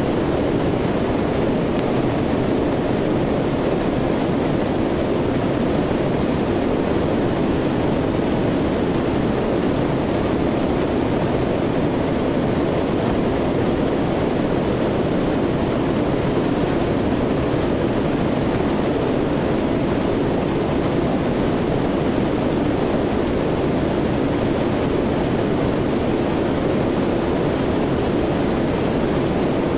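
Steady drone of a Lockheed C-130 Hercules's four turboprop engines and airflow, heard from aboard the aircraft in flight. It stays even throughout.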